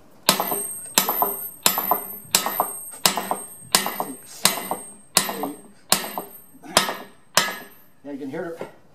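Eight-pound sledgehammer driving a wheel stud home into a 1973 Eagle Model 05 bus wheel hub: eleven steady metal-on-metal blows, about one and a half a second, each with a short high ring.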